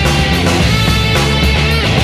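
Loud rock music with guitar, its bass notes changing under a busy melody.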